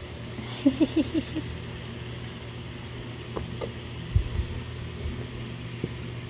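Steady low hum of room background, with a short run of small infant grunting vocal sounds about a second in and a soft low thump a little after four seconds as the baby's hands work at a shallow tray of water.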